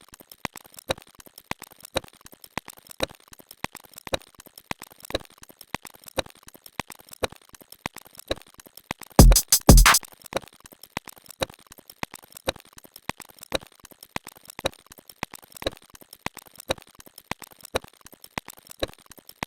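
Electronic drum-machine beat sound effect: short hits repeating rapidly, with a louder burst of heavy bass hits about nine seconds in.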